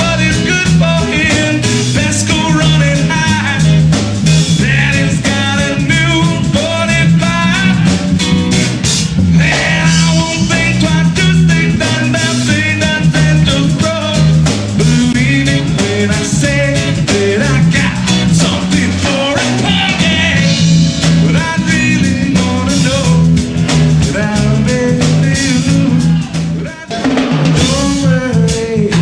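Live band playing: a man sings over strummed acoustic guitar and a drum kit, the music dipping briefly near the end.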